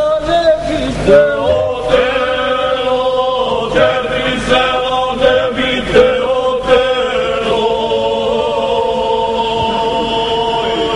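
A group of voices singing a slow, unaccompanied traditional Bukovica folk song in long drawn-out phrases. It ends on one long held note that slides down at the close.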